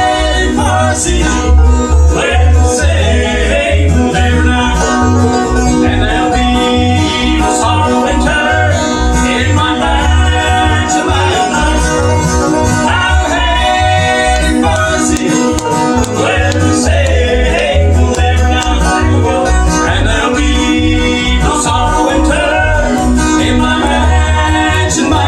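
Live bluegrass band playing, with banjo to the fore alongside guitar over a steady bass beat.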